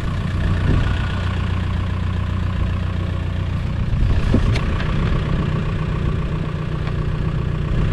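A Seat Leon 1M FR's engine idling steadily with an even low hum.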